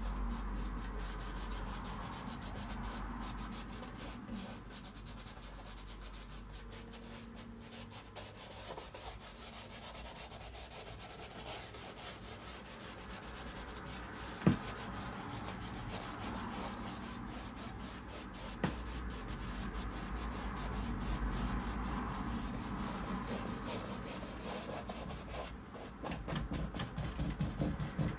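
Paintbrush rubbing oil paint onto a stretched box canvas in many repeated strokes, with one sharp tap about halfway through.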